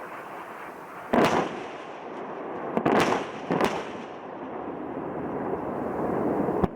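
Sharp explosive bangs over a steady rushing roar: one about a second in, then three in quick succession around three seconds in.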